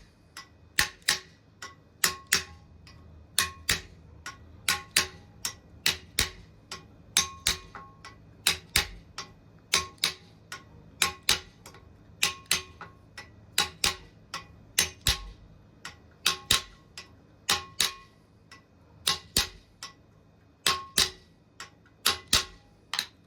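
Steady metal-on-metal tapping, about two light strikes a second and sometimes in quick pairs, each with a short ring: a new front bearing being tapped by its outer ring into an alternator's front housing until it seats.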